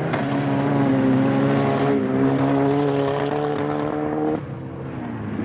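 Grass-track racing car engine running hard, its note held and slowly climbing for about four seconds, then dropping off sharply as the throttle is lifted.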